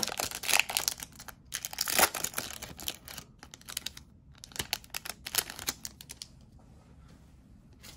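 Foil wrapper of a Bowman Chrome baseball card pack crinkling and tearing as it is pulled open by hand, in bursts of crackling. The crackling thins out over the last two seconds.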